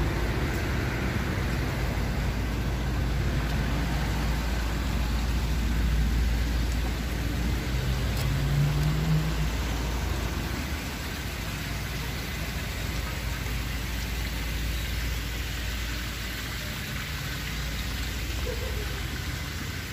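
Steady low rumble and road noise of a moving motor vehicle.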